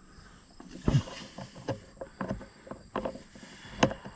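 Irregular knocks, clicks and rustles of hands working a wire and parts against the tractor's metal, with a louder knock about a second in and another near the end.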